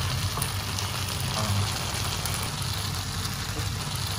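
Gobi manchurian (sauced fried cauliflower with onion and capsicum) sizzling in a non-stick pan: a steady hiss with a low hum underneath.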